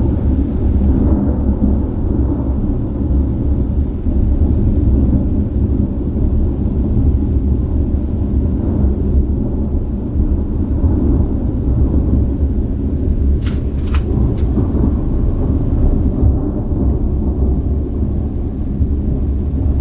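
Continuous thunder from a supercell thunderstorm: one thunderclap rolls into the next without a break, making an unbroken deep rumble.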